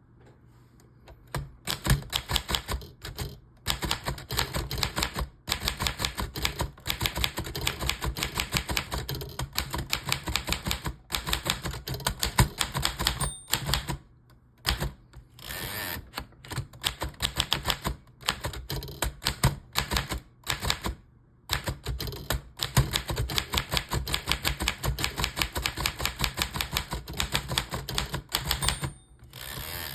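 1941 Remington Streamliner manual typewriter being typed on: fast runs of crisp key and typebar strikes, broken by short pauses. Twice a brief high ring comes just before a pause.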